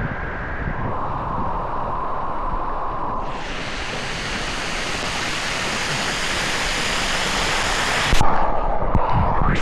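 Three Spout Waterfall pouring into its pool: a steady rush of falling water. About three seconds in the sound becomes brighter and fuller, and near the end there is a louder low rumble.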